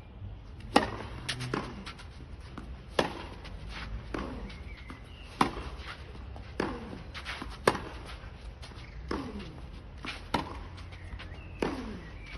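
Tennis rally on a clay court: a serve and then the ball struck back and forth with rackets, a string of sharp pops about one every second or so.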